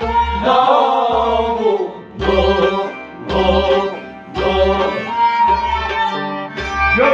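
Male voices singing a folk song to a harmonium, over a hand drum beating a low pulse about once a second.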